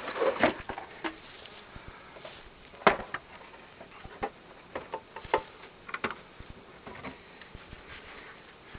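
Wooden beehive boards and boxes being handled: irregular knocks, clicks and scrapes of wood set down and shifted. The loudest knock is about three seconds in.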